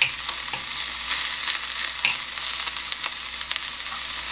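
Leftover seasoned namul sizzling steadily in hot oil in an earthenware ttukbaegi, with scattered crackles and pops. A metal spoon stirs and scrapes through the vegetables against the pot.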